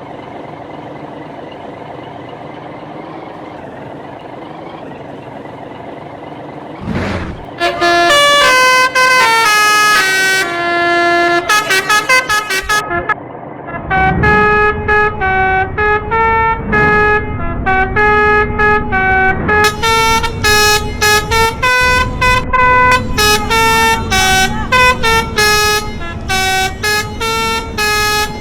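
A bus's telolet horn, a multi-tone musical horn, plays a melody of stepped notes. It starts about seven seconds in, after a steady engine hum. It breaks off briefly near the middle, then carries on in quicker, clipped notes.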